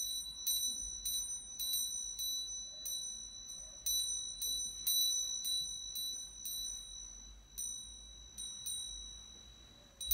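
Small altar bell struck over and over, about twice a second, each strike ringing on, rung at the elevation of the chalice during the consecration at Mass.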